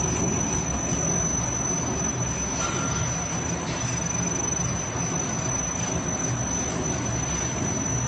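Laminated pearl cotton (EPE foam) welding and edge-cutting machine running: a steady mechanical noise with a constant high-pitched whine and a few faint squeals.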